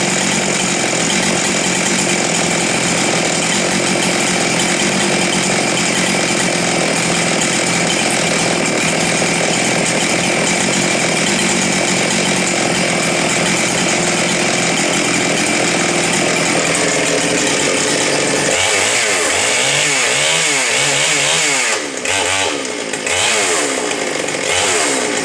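Husqvarna 394 XP, a 94 cc two-stroke chainsaw, running steadily at high revs. For the last several seconds its engine speed wavers up and down, with two brief dips.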